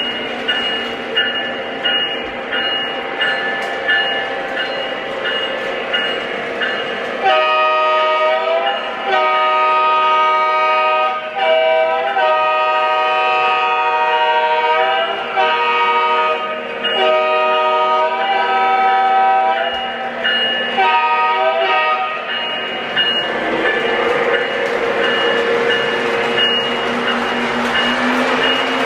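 Sound system of a Lionel O scale Union Pacific diesel locomotive: a diesel horn sounded in a series of long and short blasts over the rumble of the engine sound and a steadily repeating bell. Near the end the engine sound rises in pitch as it revs up.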